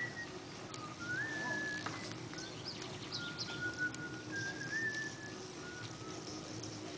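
A person whistling a slow tune in long held notes, sliding up between some of them, with short bird chirps higher up and a faint steady hum underneath.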